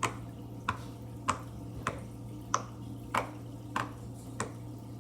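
Bubbles of a mini push-pop fidget toy (poppet) being pressed in one by one: eight short, sharp pops at an even pace, about one every two-thirds of a second.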